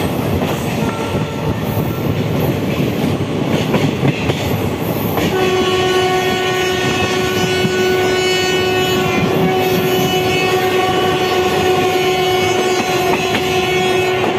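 Indian passenger train running, heard from inside a moving coach, with the rumble and clatter of the wheels on the track. About five seconds in, a train horn starts and is held as one long steady note for about nine seconds.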